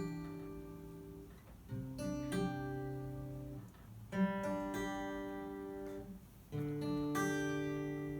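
Acoustic guitar playing the opening of a song, a new chord struck about every two and a half seconds and left to ring, as the instrumental intro before the vocals come in.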